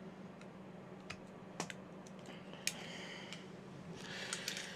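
A small screwdriver driving a flanged screw into die-cast model engine parts: a few light, separate clicks and two short bouts of scraping as the screw turns.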